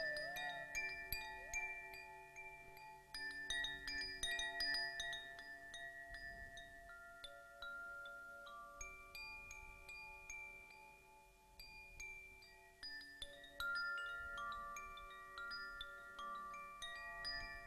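Hand-held wind chime gently swung, its rods struck at random and ringing in long, overlapping notes at several pitches, with light tinkling strikes.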